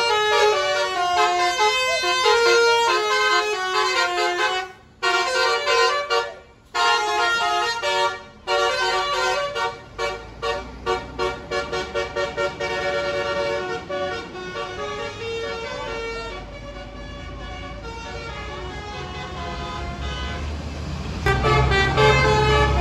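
Tour bus "basuri" musical air horn playing a melody of several tones, with short breaks. It then switches to a run of quick repeated toots, about two or three a second, before fading out. A bus engine rumble grows after that, and near the end another horn starts up.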